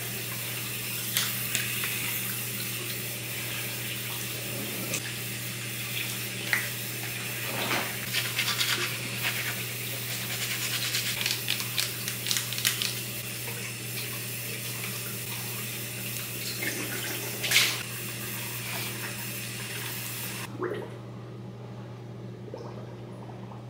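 Bathroom sink tap running steadily, with scattered small knocks and clicks of items handled at the basin. The water shuts off about 20 seconds in, leaving a steady low hum.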